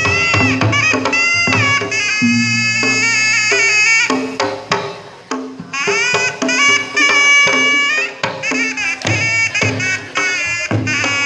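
Sundanese pencak silat accompaniment (kendang pencak): a shrill reed terompet plays a bending, ornamented melody over kendang drum strokes and low held tones.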